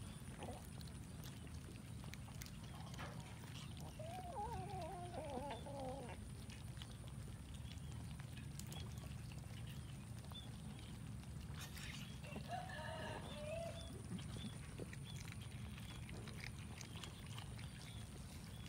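Steady low outdoor rumble with two wavering animal calls: one about four seconds in that lasts about two seconds, and a shorter one about twelve seconds in. Faint scattered clicks are heard throughout.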